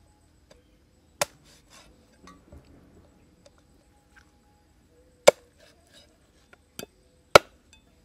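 Knife chopping through a plucked bird's carcass onto a wooden chopping block: four sharp chops, the two loudest in the second half, with soft rustling of the meat being handled between them.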